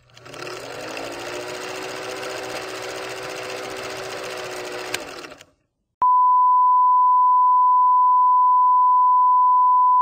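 Film-leader countdown sound effect: an old film projector running with an even mechanical whir and clatter for about five seconds, then stopping. After a short gap, a loud steady single-pitch test tone starts about six seconds in and holds, the reference tone that goes with colour bars.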